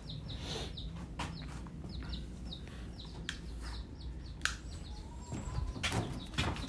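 Bantam chicks peeping: a steady run of short, high, falling peeps, with a few knocks and handling clicks, the loudest about four and a half seconds in.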